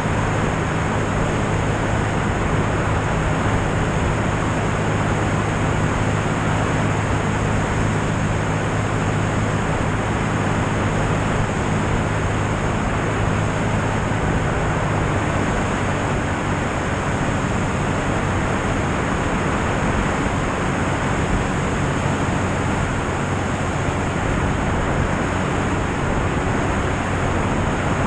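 Light aircraft in cruise flight: a steady low engine and propeller drone under a loud rush of airflow over an outside-mounted microphone.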